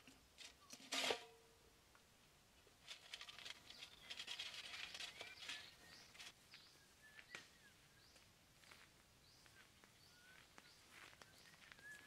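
A sharp metallic clang with a brief ringing about a second in: the milk-can bird trap snapping shut on the parakeet that has walked inside. Then a few seconds of crackling rustle, with faint bird chirps here and there.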